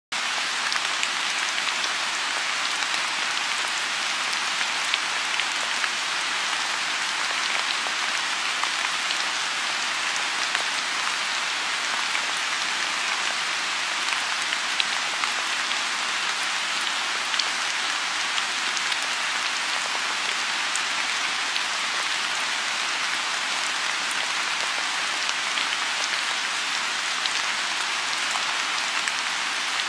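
Rain falling steadily on a lotus pond: an even hiss with scattered individual drops ticking through it.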